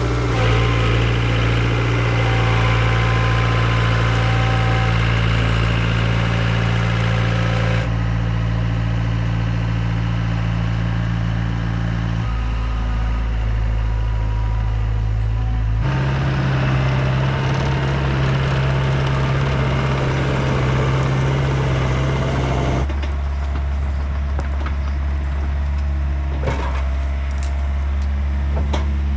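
Diesel engine of a compact excavator running steadily, its note changing abruptly several times. In the last few seconds hickory wood cracks and splinters in sharp snaps as the fallen tree is broken up.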